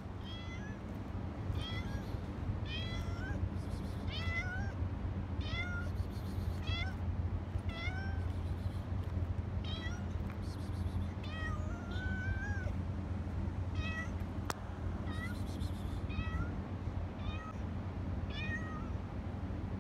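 Orange-and-white cat meowing over and over, short calls coming about once a second, over a steady low hum.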